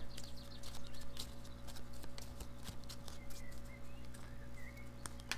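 Light, irregular clicks and taps of oracle cards and a crystal being handled on a tabletop, over a steady low electrical hum.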